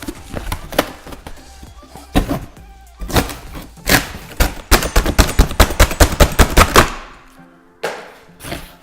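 A cardboard shipping box being cut open with a knife and handled: scraping and slicing through packing tape and cardboard, with a quick run of sharp strokes, about five a second, in the middle.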